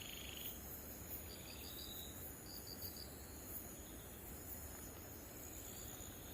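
Night insects, likely crickets, chirping faintly: short high chirps in groups of about four, over a steady high drone.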